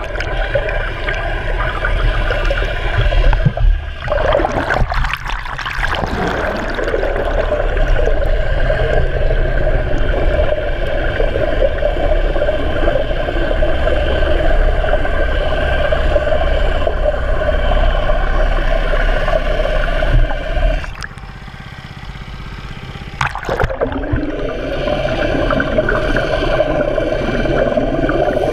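Briggs & Stratton lawn-mower engine pushing a homemade pontoon boat, heard underwater through a waterproof camera housing: a steady muffled engine hum mixed with the rush of water and propeller churn. It drops away for a couple of seconds about three quarters of the way through.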